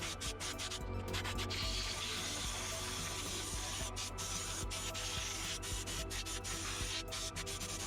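Steady rubbing and scrubbing noise of dust being cleaned out of an old desktop PC, over music playing in the room.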